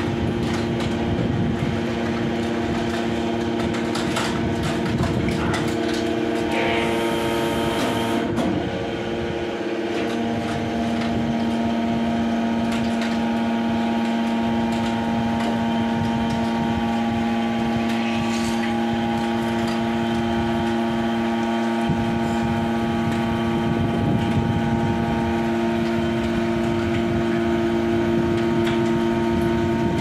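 Hydraulic power unit of a YD1600A horizontal scrap metal baler running with a steady hum of several sustained tones. The tone shifts about 7 to 10 seconds in and again around 22 seconds as the operator works the press cylinders.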